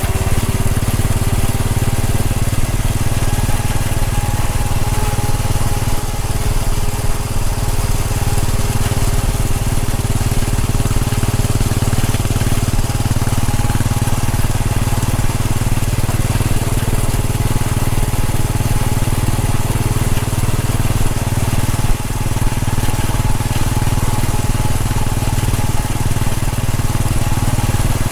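Royal Enfield Bullet 500's single-cylinder engine running at a steady cruising speed, a continuous low exhaust beat with no revving up or down.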